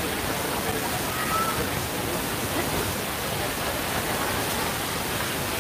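Steady hiss of outdoor background noise with faint, indistinct distant voices.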